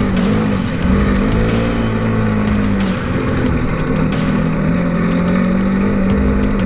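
Polaris RZR 900 side-by-side's twin-cylinder engine running under changing throttle, its pitch dipping and rising in the first few seconds and then holding fairly steady. Short sharp knocks and clatter are scattered over it.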